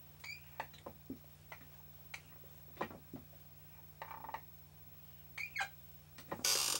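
Dry-erase marker writing on a whiteboard: a run of short squeaky strokes and taps as letters are drawn, with a louder, longer scratchy stroke near the end. A faint steady low hum sits underneath.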